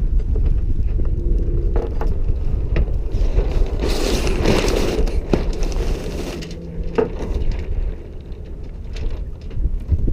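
Wind buffeting the microphone over the sounds of a small sailboat being tacked single-handed. There are scattered clicks and knocks from the lines and winch, and a loud rasping rush from about three to six and a half seconds in as the sails and sheets are worked.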